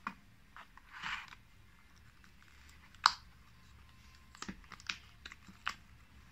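Scattered clicks and taps of hard cured resin figures being handled and prised out of a silicone mould. There is one sharper click about three seconds in, then a quick run of small clicks near the end.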